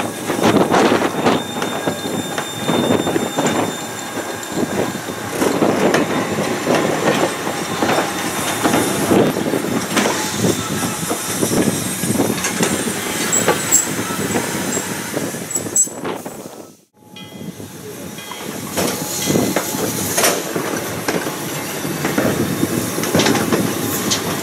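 Vintage train running on the rails: wheels clattering and knocking over the track, with a faint high squeal at times. The sound cuts out abruptly about two-thirds of the way through, then picks up again.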